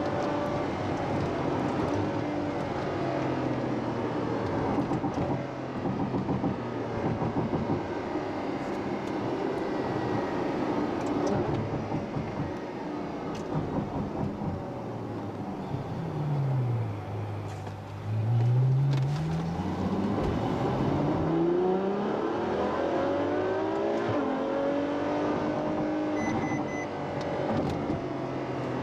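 Ferrari F12 Berlinetta's 6.3-litre naturally aspirated V12 running under way, heard from inside the cabin. About halfway through the revs drop, then they climb sharply and louder as the car accelerates again.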